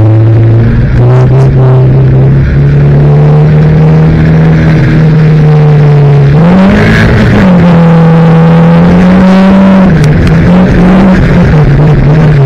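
Banger racing car's engine running hard, heard from inside its stripped-out cabin. The pitch holds fairly steady, climbs and drops back about six and a half seconds in, then wavers up and down quickly near the end as the throttle changes.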